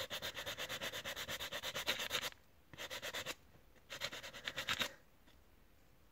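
Hand sanding of a Wahl Sterling 2 Plus trimmer body on a sandpaper block: quick back-and-forth rubbing strokes, about seven a second, in three runs with short pauses between them. The strokes stop about five seconds in.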